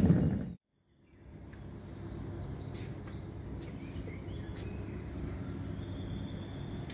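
Steady, fairly quiet low background hum with faint high chirps, such as insects make. It comes in after an abrupt cut to silence in the first second.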